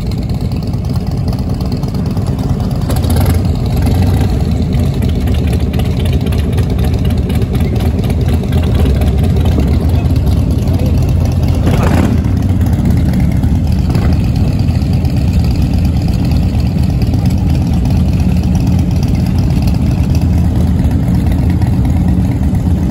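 Several motorcycle engines idling together, loud and steady.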